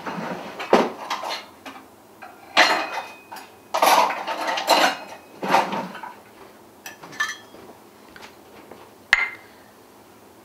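Kitchen utensils and measuring cups clattering as a drawer is rummaged through, in several rattling bursts, followed by a few light clicks and one sharp click near the end.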